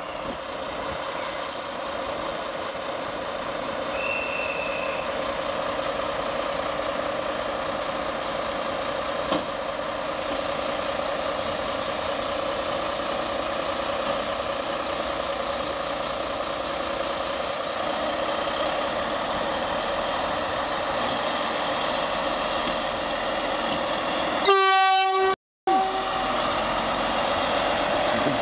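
SU42-class diesel locomotive SU4210-008 idling with a steady engine hum. About 24 seconds in comes a short horn blast lasting about a second, which cuts off abruptly.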